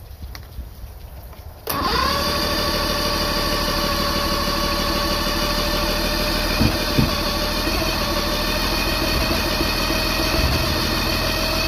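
Mercury 1500 outboard being cranked on its electric starter, cutting in suddenly about two seconds in and holding a steady whir, with a couple of brief thumps midway. The engine tries to fire but does not catch, a test of the newly installed CDI distributor's timing.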